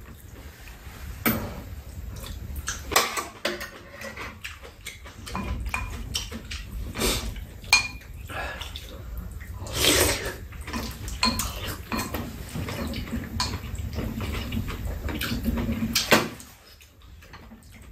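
Spoons and chopsticks clinking and scraping against bowls and a pot during a meal, as irregular sharp clicks and taps.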